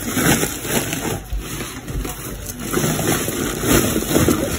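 Woven polypropylene sack rustling and crinkling as it is handled and lifted, with a few dull thuds.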